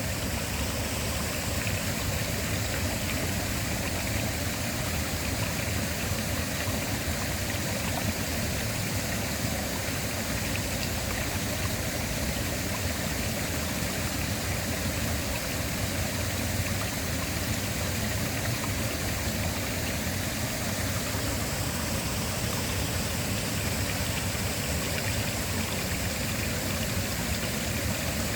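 Waterfall: falling water rushing steadily, an even, unbroken sound spread from low rumble to high hiss, with no change in level.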